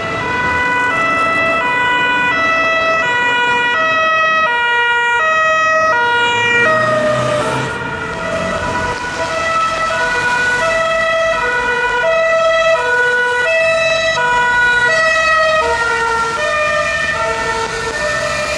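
Swiss police car two-tone siren, alternating between a low and a high note, each held about half a second, over traffic noise. A steady high tone runs alongside it for the first seven seconds or so.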